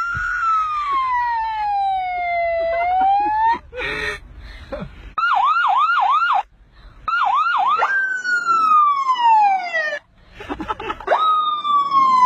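A boy imitating an ambulance siren with his mouth. First comes a slow wail that falls and rises again. In the middle is a run of quick yelp-like sweeps, about three a second. Near the end come long falling wails, with abrupt breaks between the stretches.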